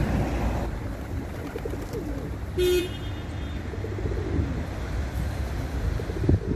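Rock pigeons cooing softly over a steady low rumble, broken by a single short, loud horn toot a little before halfway. A pigeon's wings flap near the end.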